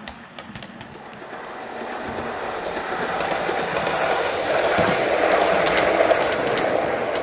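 OO gauge model multiple unit running past on the layout track, its wheels ticking over the rail joints. The sound builds as the train nears, is loudest about five to six seconds in, and begins to fade near the end.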